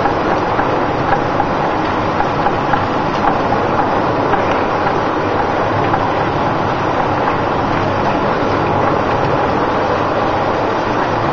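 A traditional olive mill's machinery running steadily as olives pour off the elevator chute into the stone-millstone basin, a dense rattle of many small impacts.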